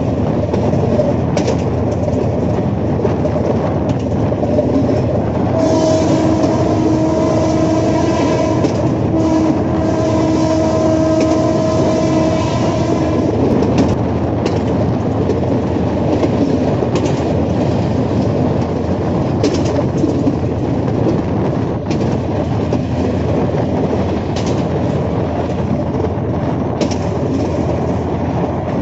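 Diesel-electric locomotive running at speed, heard from the cab: a steady din of engine and rails with wheels clacking over rail joints. The locomotive's horn sounds at about six seconds in and holds for roughly eight seconds, with a couple of short breaks.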